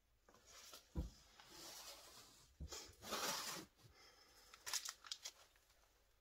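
Plastic crinkling and rustling as a plastic piping bag and plastic wrap are handled, in several bursts, with a soft knock about a second in.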